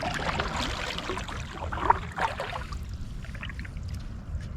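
Water splashing and trickling around a kayak, busiest in the first couple of seconds with one sharper splash near the middle, then quieter, over a steady low rumble.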